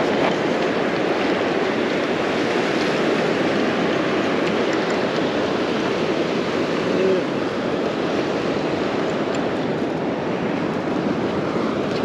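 Steady wash of ocean surf breaking on a sandy beach.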